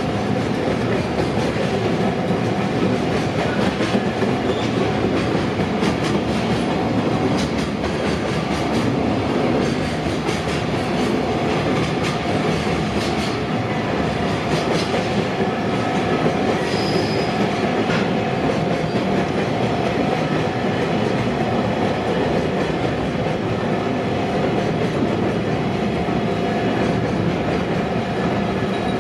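Freight train hauled by an EF66 electric locomotive rolling steadily past at close range, its wheels clacking over the rail joints.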